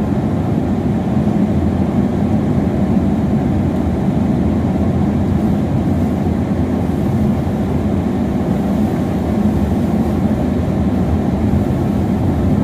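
Steady low rumble of a car's engine and tyres heard from inside the cabin while driving on a paved road.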